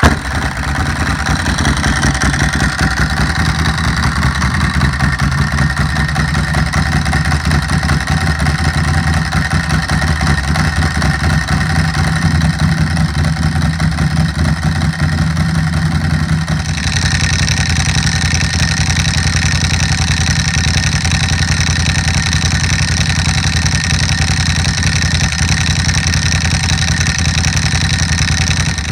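A 2008 Ducati Hypermotard 1100's air-cooled L-twin idles steadily, just after starting, through a Competition Werkes GP slip-on exhaust with the catalytic converter eliminated. About two-thirds of the way through, the sound turns brighter, with less low rumble.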